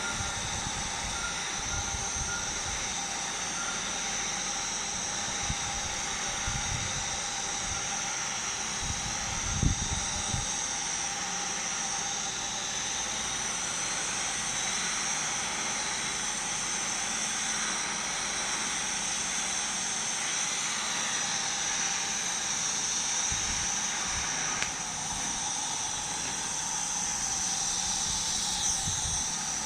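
Arc welding on pipe in the 5G position: a steady, unbroken hiss of the arc with a thin, high steady tone over it, and a brief low knock about ten seconds in.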